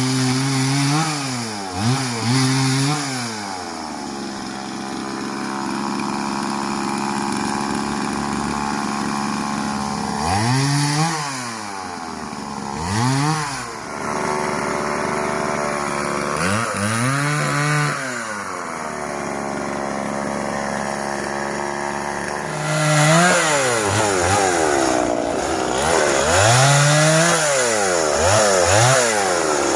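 Stihl two-stroke chainsaw revving up and down in repeated throttle blips, with longer spells held at a steady speed as it cuts through wood.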